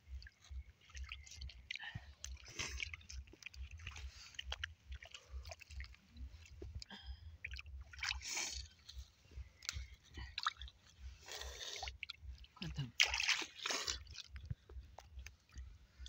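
Hands splashing and squelching in a shallow muddy puddle and wet mud, in irregular bursts, with a few louder sloshes.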